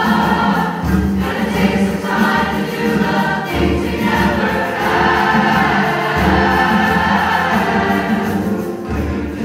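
Large mixed choir of men and women singing sustained chords, with the low notes moving every couple of seconds, heard from the audience seats.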